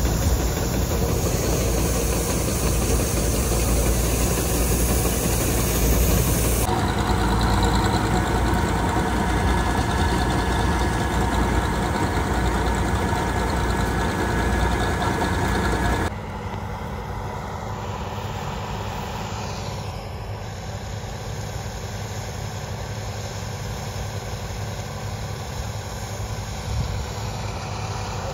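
Bizon combine harvester running while barley pours from its unloading auger into a steel trailer, a steady hiss of grain over the engine. About 16 seconds in the sound drops to a quieter, steady diesel engine hum.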